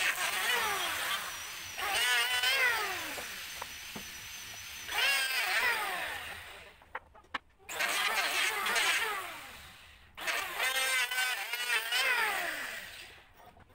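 Handheld electric power planer shaving a teak beam in repeated passes, its motor whine dipping in pitch as the blades bite and recovering between cuts. The passes last one to three seconds each, and the planer stops briefly twice.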